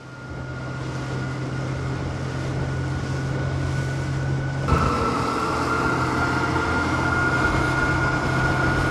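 Small fishing boat's engine running steadily under way, a constant drone with a steady hum. It fades in at the start and gets a little louder about five seconds in.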